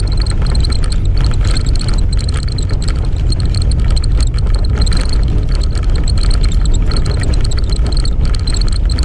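Steady engine and road noise heard from inside an off-road 4x4's cabin as it drives along a rough dirt track, with many short rattles and knocks from the vehicle jolting over the bumps.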